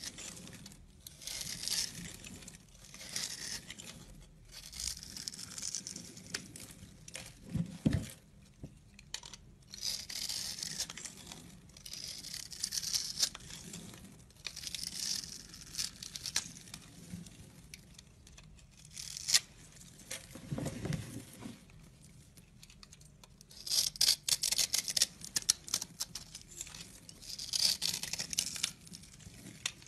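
Utility knife blade cutting through a scored bar of dry soap. Small soap cubes crackle and crunch off it as it goes, in a series of short scraping strokes with brief pauses between them. There are low thumps about eight seconds in and again near twenty-one seconds.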